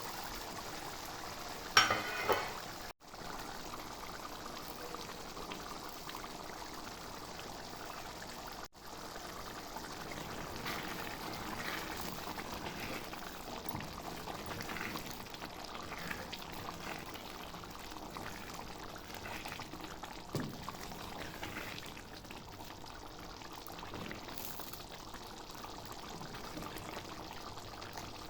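Chickpea curry cooking in a pot, a steady bubbling sizzle, with a short clatter about two seconds in.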